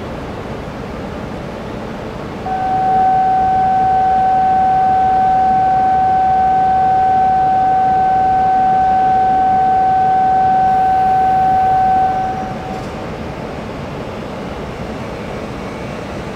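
A single steady electronic tone, such as a platform departure buzzer, sounds beside a stopped E5 series Shinkansen. It starts about two and a half seconds in and cuts off sharply about ten seconds later, over a steady background rush.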